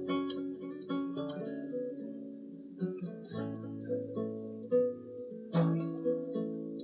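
Background music: an acoustic guitar picking notes and chords that ring on, with a firmer strum about two thirds of the way in.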